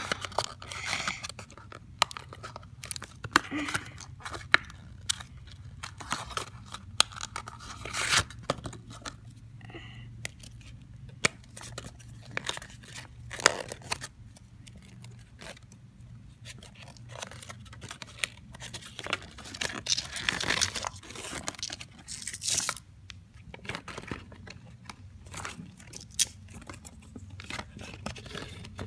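Hands unpacking Shopkins Happy Places toy packaging: a cardboard box opened, a paper leaflet shuffled and small clear plastic wrappers crinkled and torn. Scattered rustles, clicks and tearing, with the loudest rustling about two-thirds of the way in.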